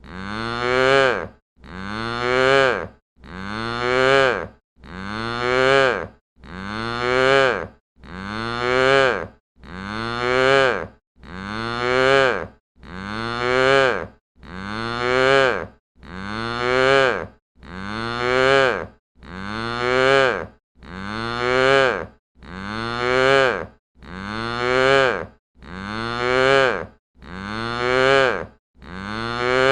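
A cow mooing, the same short moo repeated over and over about every second and a half. Each moo bends up in pitch and grows louder before stopping abruptly, with no echo.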